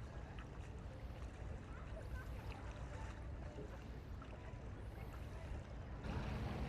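A boat's engine running at a steady idle, a low even hum.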